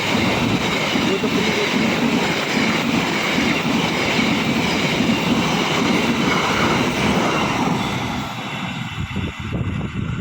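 A train running on the tracks close by, a loud steady rumble and rush of wheels on rail that eases and turns uneven near the end.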